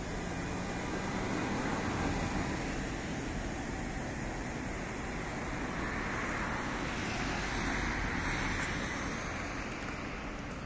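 Steady road-traffic noise, with one vehicle passing close and swelling in level about seven to nine seconds in.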